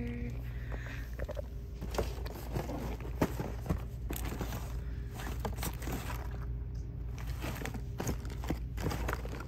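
Scattered clicks and crinkles from plastic-packaged merchandise being handled, at irregular times, over a steady low hum.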